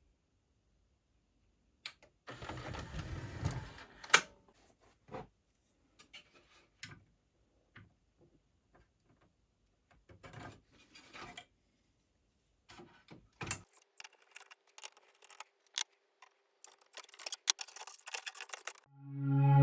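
Scattered clicks and light knocks of hands-on repair work on a LaserDisc player, with a short rustling stretch early and a faint steady hum over the last few seconds. Loud music comes in right at the end.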